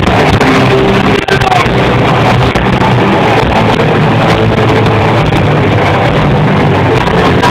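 Loud amplified live concert music picked up by an overloaded phone microphone, so it comes out as a dense, distorted wash of sound.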